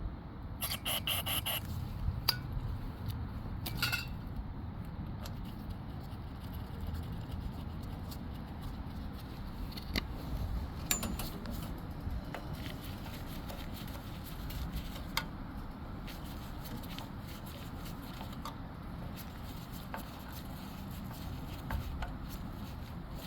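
Scattered sharp clicks and scrapes, as of hard objects being handled, over a steady low rumble.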